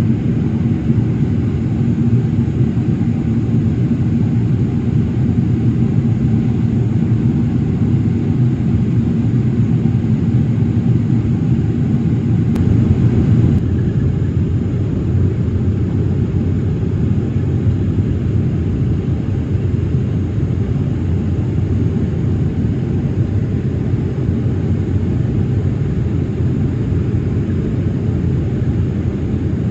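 Steady low drone of an airliner's engines and rushing air, heard inside the passenger cabin. A faint low hum in the mix drops away about halfway through.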